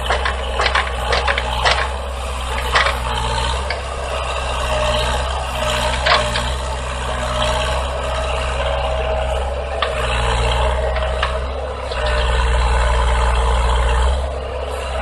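Heavy machinery's diesel engine running steadily, with sharp metallic clanks and rattles, many of them in the first few seconds.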